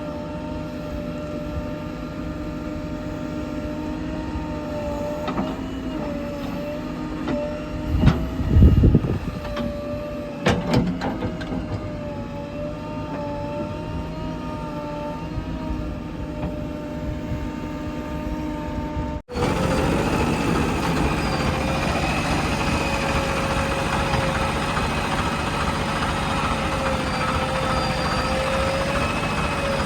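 Heavy diesel engine of earthmoving machinery running steadily, its pitch wavering slightly as it works. There is a loud low thump about eight seconds in, followed by a few sharp knocks.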